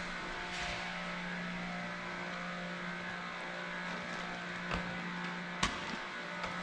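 A steady, even machine hum holding one pitch, with a few sharp clicks in the last two seconds.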